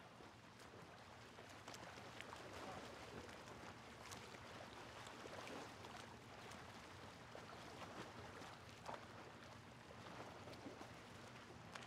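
Near silence: a faint steady hiss with a low hum and a few scattered small clicks.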